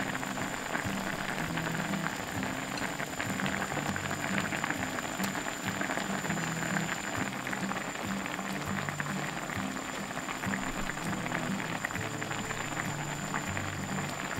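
Spicy soy-and-chili braising sauce simmering around tofu in a pot, a steady crackle of bubbling and popping over medium heat. Soft background music plays underneath.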